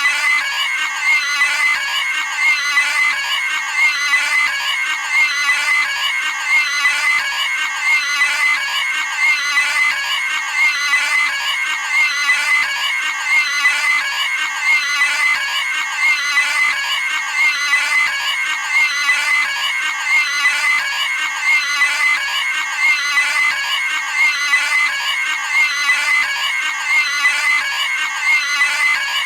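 Cartoon pig scream sound effect: a short, high-pitched squealing scream repeated over and over at an even pace.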